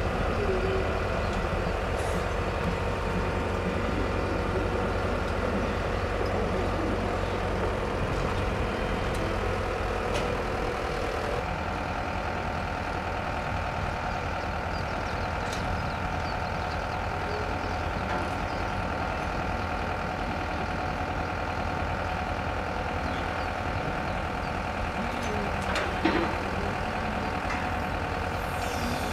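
Large mobile crane's diesel engine running steadily under load while it hoists a heavy steel bridge deck. There is a single knock near the end.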